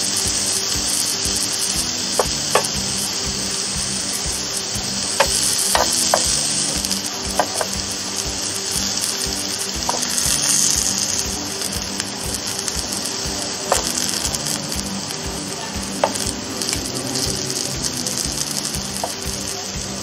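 Mushrooms and vegetables sizzling steadily on the hot plates of an electric contact grill. Metal tongs click and scrape against the grill plates every few seconds as the food is turned.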